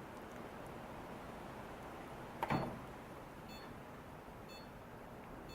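Athletes Fitness AF430 treadmill console giving two faint short beeps as its buttons are pressed, after a single sharp knock about two and a half seconds in, over a low steady hum.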